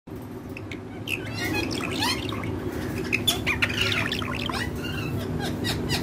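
Indian ringneck parakeet chattering in short squawks and chirps, many quick calls starting about a second in.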